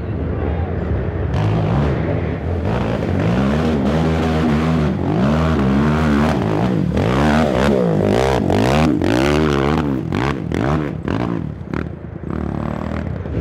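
Race quad (ATV) engine revved up and down over and over as the rider works the throttle through the turns, with short knocks and clatter from the machine and the ground.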